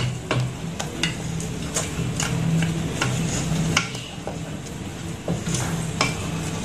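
Wooden spatula stirring thick, cooking ragi flour paste in a stainless steel saucepan: irregular scrapes and taps against the pan, a few a second, over a steady low hum. The paste is thickening as it cooks.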